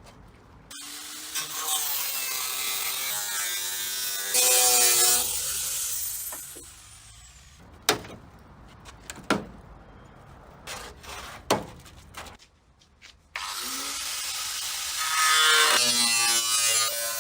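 A power tool cutting away a car's rusted body sheet metal, running in two bursts whose pitch shifts as the tool is loaded. Between the bursts come three sharp metallic knocks.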